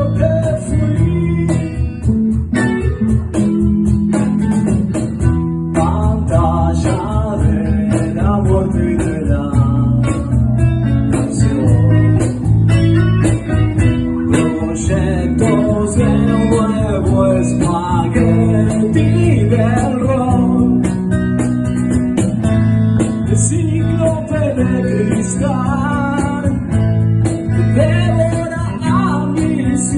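Band music led by guitar over sustained bass notes and a steady beat.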